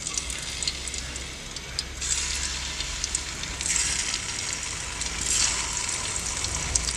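Hot ghee sizzling in an aluminium karahi as boiled potatoes are set into it one by one. The sizzle swells louder three times as more potatoes go in, with a few light clicks.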